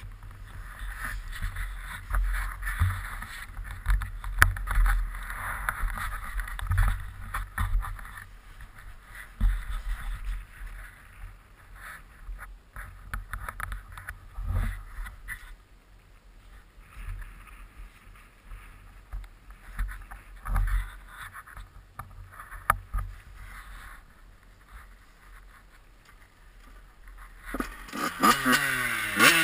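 Muffled rumbling with scattered knocks for most of the stretch, then near the end a Yamaha YZ85 two-stroke dirt bike engine revs up and drops back.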